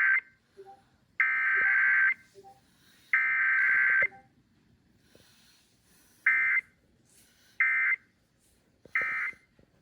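Emergency Alert System SAME data bursts on an FM radio broadcast, two-tone digital screeches. The end of one header burst is followed by two more header bursts about a second long each, a pause, then three short end-of-message bursts. No attention tone or voice message comes between them, the pattern of a Required Weekly Test.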